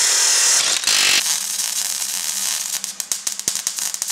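Abrasive disc cutting a metal tube: a loud, hissing cut for about a second. Then a steady low hum with a run of sharp mechanical clicks that come faster and closer together near the end.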